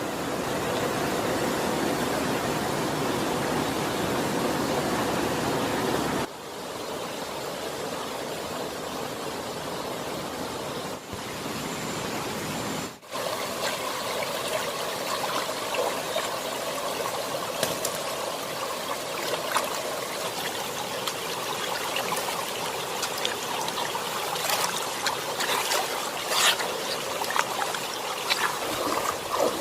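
Steady rush of flowing stream water, which drops abruptly in level about six seconds in and again briefly about halfway through. A few faint clicks sound in the later part.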